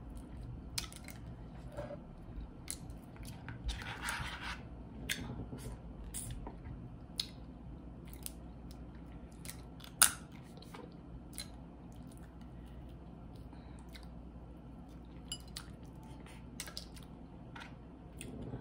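Eating boiled crawfish: scattered sharp cracks and clicks of shells being broken and peeled, with chewing between them. The loudest crack comes about ten seconds in.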